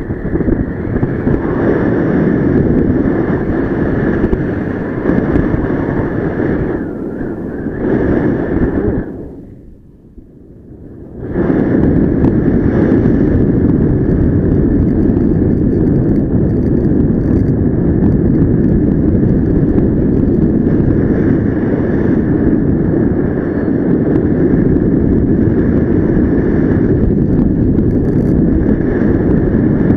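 Loud, steady rush of airflow buffeting the microphone of a paraglider in flight. The rush falls away for about two seconds near the middle, then comes back.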